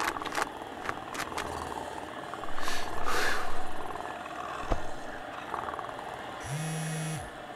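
Cat purring as it curls up in a lap, with a breathy rustle about three seconds in and a steady stretch of purring near the end.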